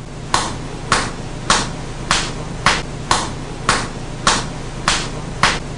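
A steady, even beat of short sharp percussive hits, about two a second, each fading quickly.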